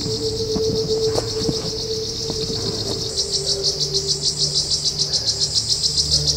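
Loud chorus of insects calling from the trees overhead: a high, steady buzz that turns into a rapid pulsing, about five pulses a second, roughly halfway through.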